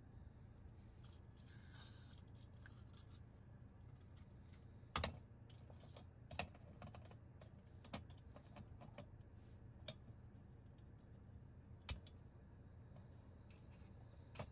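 Scattered light clicks and knocks of a metal camping stove, its gas canister and a metal mug being handled on a wooden table, the loudest about five seconds in. A foil food pouch crinkles briefly near the start, over a faint low hum.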